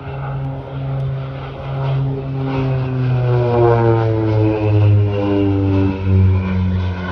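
North American OV-10 Bronco's twin Garrett T76 turboprops passing close by in a flypast. The propeller and engine tone drops in pitch as the aircraft goes past, loudest in the second half.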